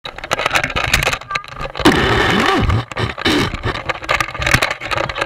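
Small open motorboat under way: wind buffeting and rushing over the microphone, with many sharp knocks as the hull bounces on the waves and people laughing in between.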